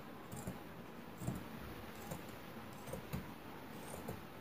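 Scissors snipping through blouse fabric: several short cuts, less than a second apart, over a steady background hiss.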